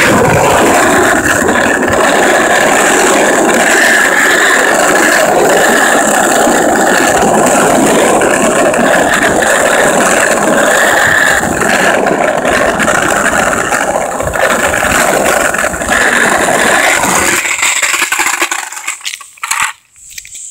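Loud, steady rattling roar of wheels rolling over rough, cracked asphalt. It fades and breaks up about eighteen seconds in as the rolling comes to a stop.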